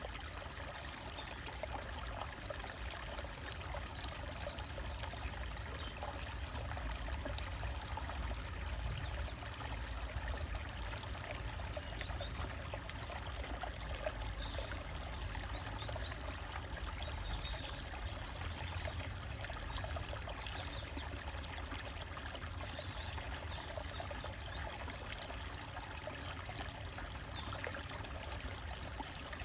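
Small forest stream trickling and flowing over rocks, a steady, even rush of water.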